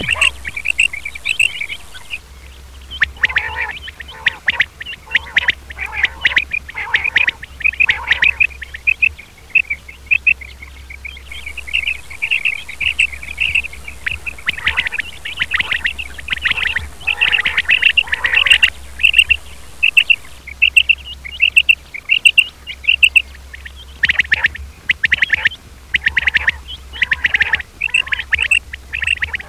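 Male quail (batair) calling: short, high, clipped notes repeated in quick runs, with brief pauses between runs.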